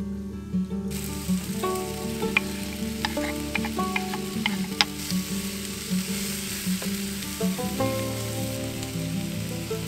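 Food sizzling in a frying pan, starting suddenly about a second in, with a few light clicks, over background guitar music.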